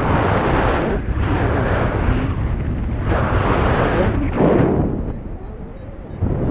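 Wind buffeting the camera microphone in flight under a paraglider, a rough rumbling rush in gusts that eases off about five seconds in and picks up again near the end.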